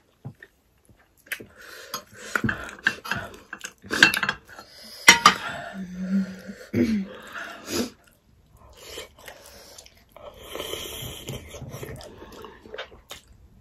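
Close-up chewing and lip-smacking as barbecued pork is eaten by hand, a run of short wet clicks and smacks, with an occasional clink of dishes.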